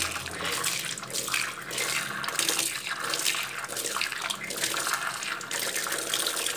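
Stream of tap water splashing unevenly into a clay pot and a plastic tub of potting soil, soaking the soil before planting, with water also spattering off a hand held in the stream.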